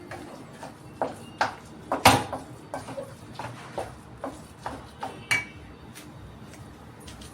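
A cooking utensil knocking and clinking against a pan in irregular strikes, loudest about two seconds in, with one ringing clink near five seconds.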